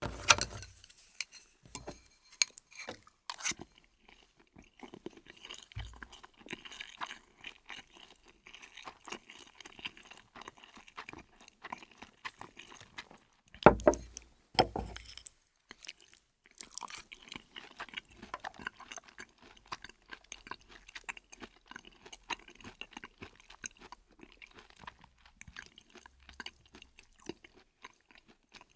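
Close-up mouth sounds of someone eating noodles and fried chicken: steady crackly chewing and crunching with small wet clicks. A few louder thumps come near the start and around the middle.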